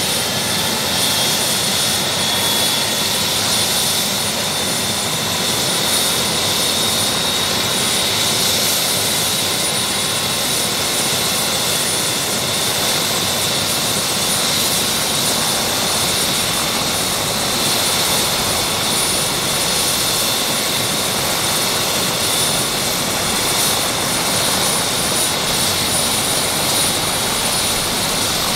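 Bell 407 helicopter running on the ground with its rotors turning: a steady high turbine whine over a loud, even rushing noise. The whine rises a little about a second in, then holds steady.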